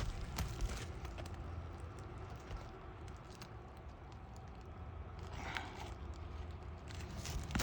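Asphalt roof shingles being pried up and scraped loose, with scattered small clicks and a longer scrape about five and a half seconds in. The brittle shingles tear rather than lift cleanly. A steady low rumble runs underneath.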